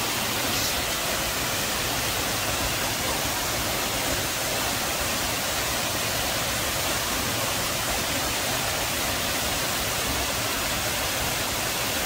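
Waterfall cascading down stepped rock ledges into a shallow pool, a steady rushing of falling water.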